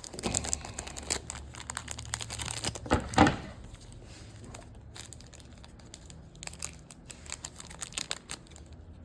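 Plastic wrapper of a football-card rack pack being torn and crinkled, with one sharp crackle about three seconds in, then softer scattered rustles and clicks as the cards are handled.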